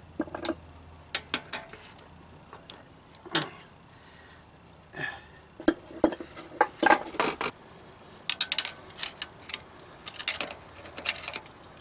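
Intermittent metallic clinks and taps of tools and metal parts on an ATV's open gear case, in small clusters about six to seven seconds in and again between about eight and eleven seconds in.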